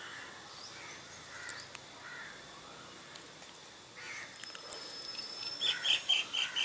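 Birds calling faintly: a few scattered calls, then a quick run of short high chirps near the end.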